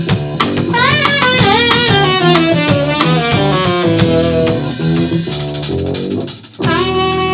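Live jazz trio of saxophone, drum kit and double bass. The saxophone plays a line of sliding, bent notes over the drums and bass, breaks off briefly near the end, then comes back in on a long held note.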